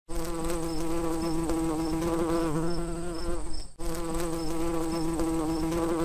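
Bee buzzing in a steady drone with a wavering pitch, broken by a brief drop-out a little past halfway before the same buzzing starts again.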